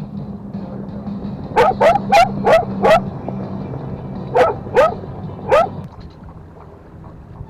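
Belgian Malinois barking: a quick run of five sharp barks, then three more, more spaced out.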